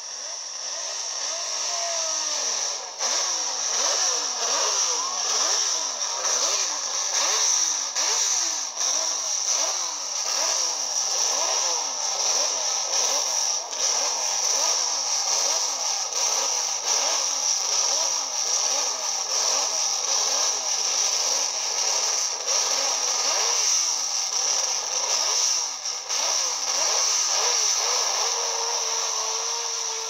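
1967 Honda RA300 Formula One car's 3-litre V12 revved again and again in quick blips, its pitch rising and falling over and over. Near the end it settles to a steadier note.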